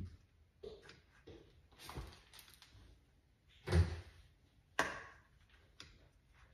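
Irregular knocks and clunks of hard objects being handled, about half a dozen, the loudest a little under four seconds in.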